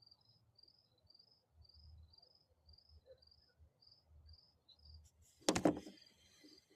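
Crickets chirping steadily at dusk, a high chirp about three times a second. About five and a half seconds in, a short, loud cry cuts through.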